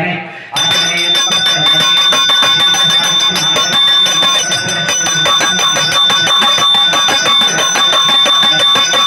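Temple bells ringing rapidly without pause, coming in suddenly about half a second in, with a steady high ringing tone throughout.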